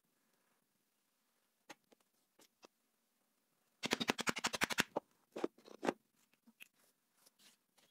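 A pricking iron driven into a cowhide strap: a fast run of about a dozen sharp clicks in about a second, then a few more crunchy clicks. Light isolated clicks from handling the leather come before and after.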